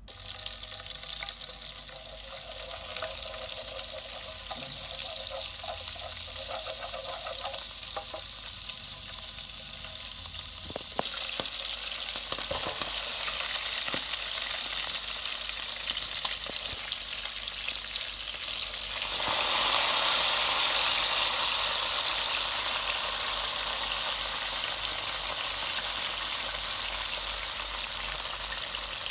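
Fatty beef sizzling as it fries in a hot pan, with a few light clicks around the middle. About two-thirds of the way in, the sizzle suddenly gets louder and brighter, then slowly eases.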